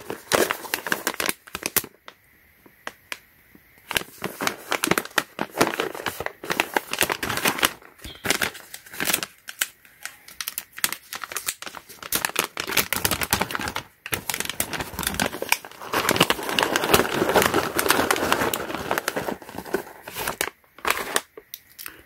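Foil packaging pouch crinkling and crackling as it is handled and pulled open, an irregular rustle with brief quiet pauses about two seconds in and near the end.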